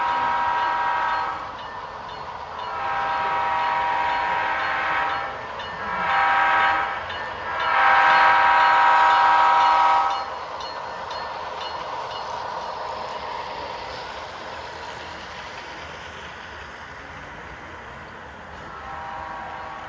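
Train horn sounding the grade-crossing signal: two long blasts, one short, one long. After it comes a steady running noise, and the horn sounds again near the end.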